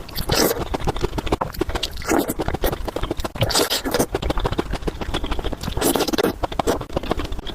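Close-miked eating of spicy chicken noodles: dense wet chewing and mouth clicks, with a louder rush every second or two.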